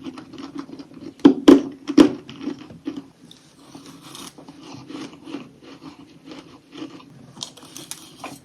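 Teeth biting into airy chunks of frozen humidifier frost: three sharp, loud crunches in the first couple of seconds, then a run of softer crackling crunches as the ice is chewed.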